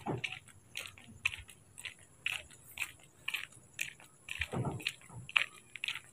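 Footsteps of a person walking at a steady pace, about two steps a second, with a brief lower sound about four and a half seconds in.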